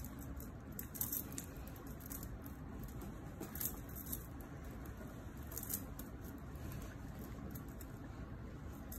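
A few faint, short metallic clicks and clinks of ring-handled surgical instruments being worked off an instrument stringer, over steady low room noise.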